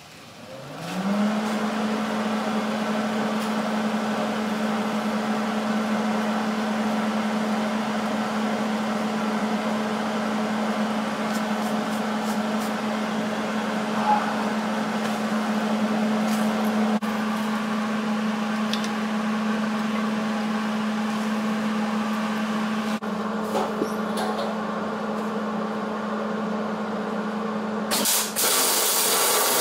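An electric motor spins up over about a second and then runs with a steady hum. Near the end a louder rushing noise joins it.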